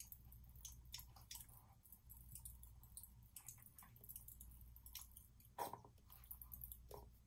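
Near silence: faint clicks and soft squishing from a plastic squeeze bottle of Floetrol being squeezed, pouring a thin stream into a cup of paint, over a low steady hum.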